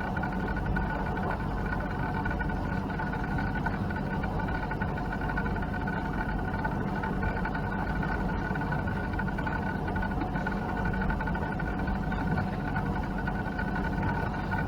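A sailboat's inboard diesel engine running steadily, a low drone with a constant high whine over it.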